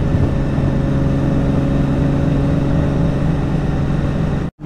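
Nissan 350Z's 3.5-litre V6 droning at a steady cruising speed inside the cabin, with road noise underneath. The sound cuts out abruptly for an instant near the end.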